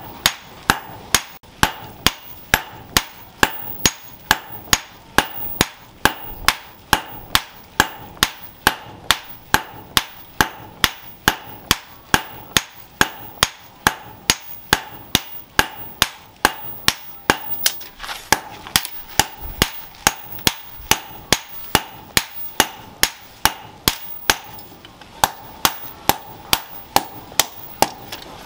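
Hand hammer forging a red-hot machete blade on a cylindrical steel anvil: a steady rhythm of about two blows a second, each with a short metallic ring.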